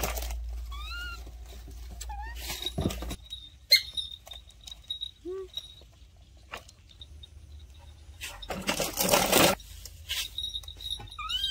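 Baby macaques giving a few short squeaky calls that rise and fall in pitch, spread through the clip, with light scattered knocks and a louder noisy rustle lasting about a second near nine seconds in.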